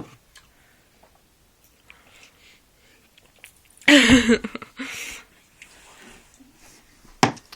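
A person burping: one loud, low, croaky burp about four seconds in, with a short sharp sound near the end.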